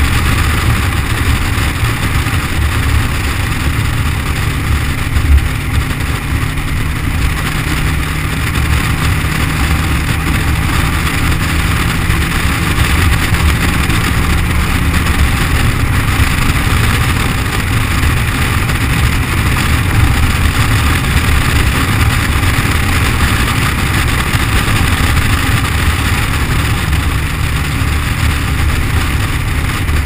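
Subaru Forester driving at road speed, heard from a camera mounted outside on the car's flank inside a GoPro waterproof housing: muffled engine, tyre and wind noise, steady and heavy in the low end. Over it runs a constant rattle that the waterproof housing brought in; its cause is unknown.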